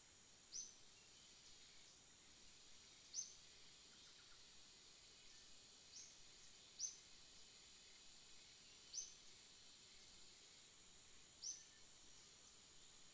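Faint outdoor ambience: a steady high insect drone, with a short, high chirp every two to three seconds, six in all.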